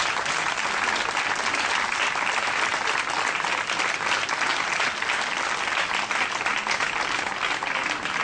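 Audience applauding, dense and steady clapping from a seated crowd.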